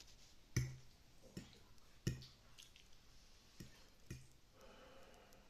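A handful of soft, sharp clicks and taps at irregular intervals, about five in all, with quiet room tone between them.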